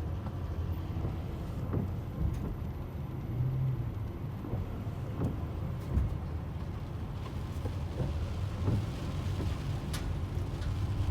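A vehicle on the move: a steady low rumble of engine and road noise, with a few light clicks.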